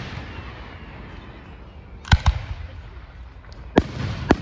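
Aerial fireworks shells bursting with sharp bangs: a quick pair about two seconds in, then two more near the end, with an echoing low rumble between them.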